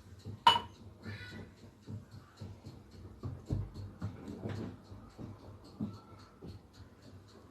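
A utensil clinks once against a bowl, then a run of light, quick scraping and tapping as cream and lemon juice are stirred together in the bowl.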